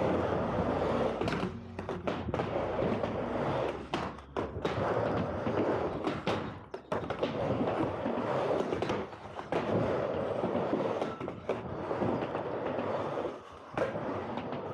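Skateboard wheels rolling over concrete slabs as the rider pushes along. The rolling noise is steady and rough, and it briefly drops away several times.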